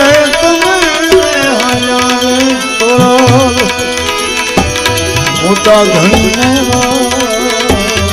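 Gujarati bhajan music: tabla keeps the beat under a melody that slides and wavers between notes.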